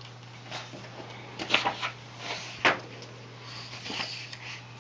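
Pages of a picture book being turned and handled: soft paper rustles and a couple of sharp little knocks, over a low steady hum.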